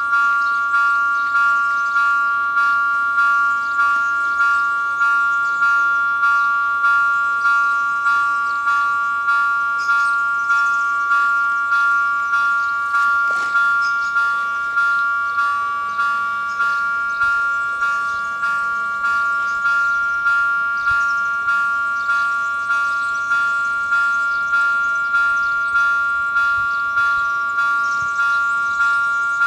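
Level crossing warning bells ringing, a bright struck-bell tone repeating evenly about one and a half times a second. They are signalling an approaching train, with the crossing's red lights flashing.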